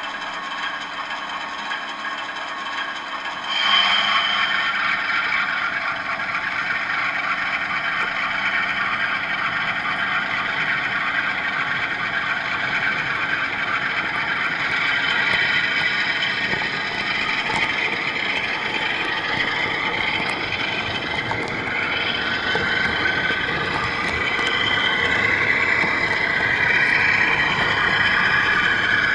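HO-scale model train running along its track, heard from on board: a steady mechanical running noise that gets louder about three and a half seconds in, with a wavering high whine in the second half.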